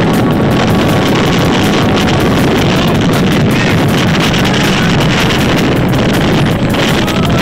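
Strong wind buffeting the microphone: a loud, steady, rumbling wind noise, with the rush of a rough sea beneath it.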